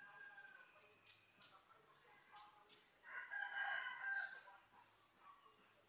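A rooster crowing once, about three seconds in, over a small bird's short high chirps repeated every second or two.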